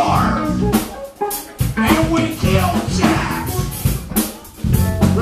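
Live rock band playing: drum kit, electric guitar and bass, with a man singing into a microphone. The band stops briefly twice, about a second in and again past four seconds in.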